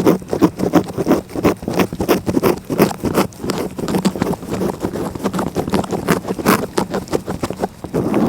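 A cat licking close up: rapid, rasping strokes of its rough tongue, several a second, with wet clicks.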